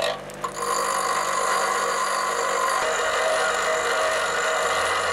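Bench grinder running with a welded cobalt tool-bit tip pressed against the grinding wheel. The steady, ringing grinding sets in about half a second in and holds level as the edge is ground to a wedge for a lathe parting tool.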